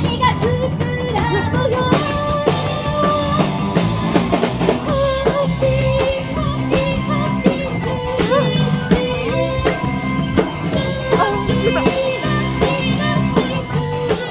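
Upbeat band music: a drum kit keeping a steady beat, electric guitar, and a man singing the melody.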